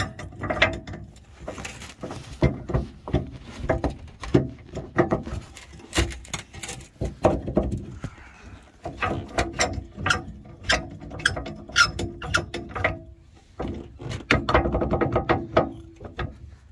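Ratchet of a torque wrench with a 15/16 socket clicking as a bolt on an aluminium gooseneck adapter hitch is backed off, mixed with knocks of metal parts. The clicks come irregularly at first, then in quicker runs in the second half.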